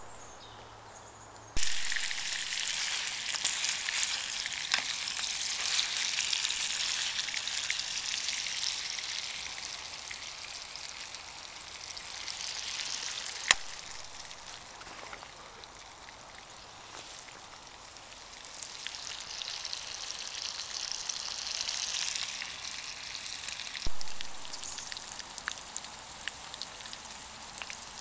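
Bacon sizzling in a hot frying pan. It starts abruptly a couple of seconds in, dies down through the middle and swells again later, with a few sharp clicks and spits.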